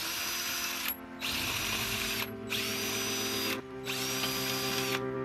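DeWalt cordless drill/driver spinning a socket on a wheel lug in four runs with brief pauses, its motor whine rising as each run starts and falling as it stops.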